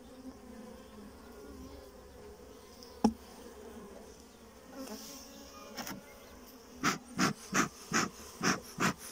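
Honeybees humming over an open hive, with a single knock about three seconds in as the wooden frames are pushed back together. Near the end comes a quick run of about six short bursts, two or three a second.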